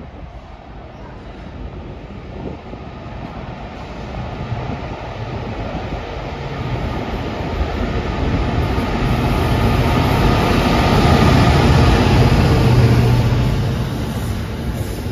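Diesel freight locomotive approaching and passing, its engine growing steadily louder to a peak about three-quarters of the way through. Then comes the rumble of the hopper wagons rolling past behind it.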